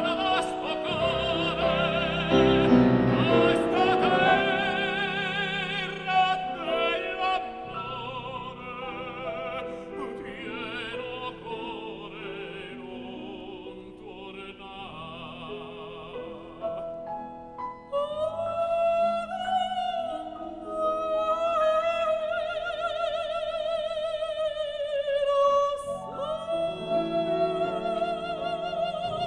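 Operatic singing of a Neapolitan song with piano accompaniment. The first half is led by the piano, loudest at the start. From about halfway a soprano sings a high, sustained line with wide vibrato over the piano, breaking off briefly near the end before going on.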